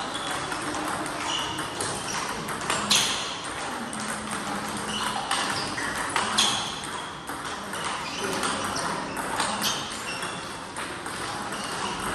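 Table tennis multiball drill: celluloid-type plastic balls struck in quick succession, a rapid, irregular string of sharp clicks as the ball hits paddle and table.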